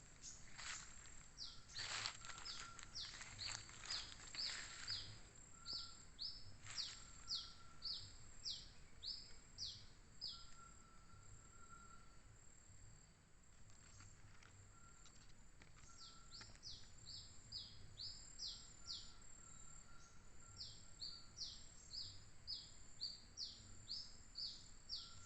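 A bird giving short, high, downward-sliding chirps, about two a second, in several runs separated by pauses. Scattered rustling clicks occur in the first few seconds.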